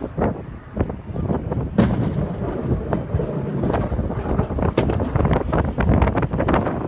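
A snow-plowing vehicle running in deep snow: a low rumble with many irregular knocks and clatters, the sharpest about two seconds in.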